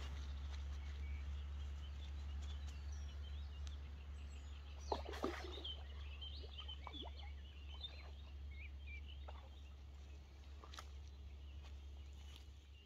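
Carp being let back into the lake at the bank: a short bout of splashing about five seconds in. Birds are chirping throughout, over a steady low rumble that cuts off at the end.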